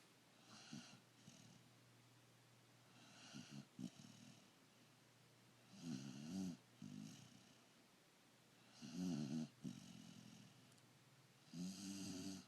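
Snoring in slow, even breaths: five snores about three seconds apart, the later ones louder, with quiet between them.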